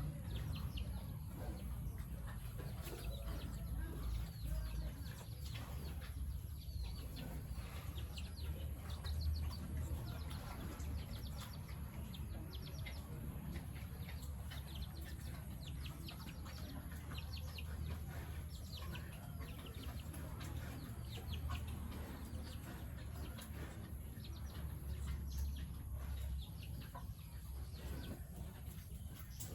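Farmyard chickens clucking, with many short high chirps scattered throughout, over a steady low hum.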